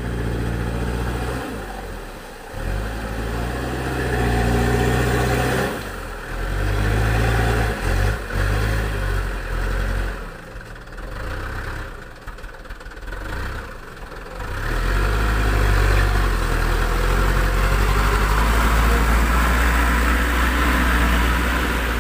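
Mitsubishi Fuso dump truck's diesel engine working through deep mud, the revs climbing and falling away several times as the throttle is pushed and eased, then held loud and steady for the last several seconds as the truck comes past.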